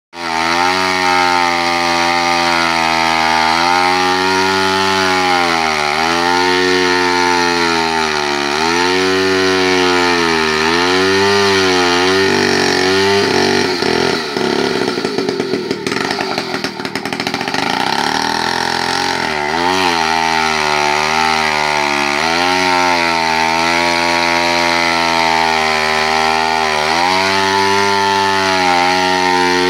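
Vintage chainsaw running at full throttle while cutting through a log. Its engine note sags and recovers about every two seconds as the chain loads up in the wood. For a few seconds around the middle the note breaks up and runs rough before steadying again.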